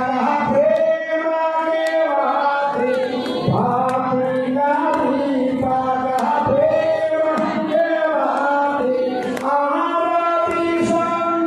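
Hindu mantras chanted in a melodic, sung style during a havan fire ritual. A voice holds long, gliding notes with hardly a break.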